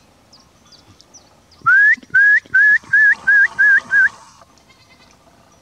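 A man whistling a quick run of seven short notes, starting about a second and a half in. The first note slides upward and each of the rest flicks up at its end, about three a second. It is a shepherd's whistle to his dog.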